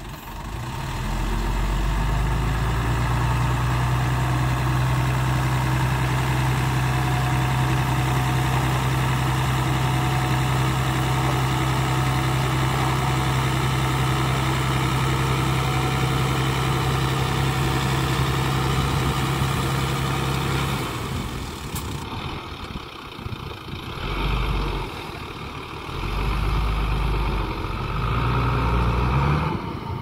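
Small dump truck's diesel engine running steadily at raised revs while the hydraulic hoist tips the loaded bed and the soil slides out. About two-thirds of the way through the steady note cuts off, then the engine comes up twice in short revs as the truck pulls forward with the bed raised.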